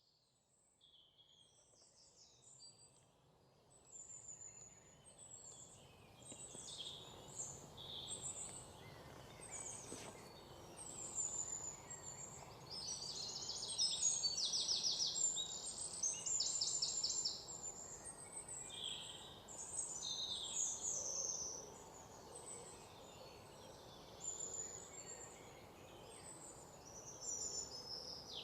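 A chorus of several forest birds singing and calling, with fast trills through the middle, over a soft steady rushing in the background. It fades in from near silence over the first few seconds.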